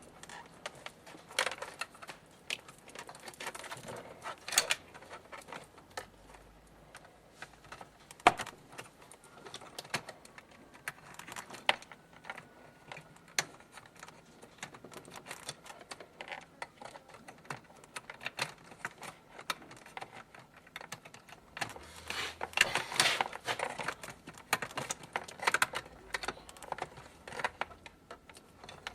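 Irregular clicks and knocks of small parts being handled during a refrigerator repair, with a quick flurry of them about 22 seconds in.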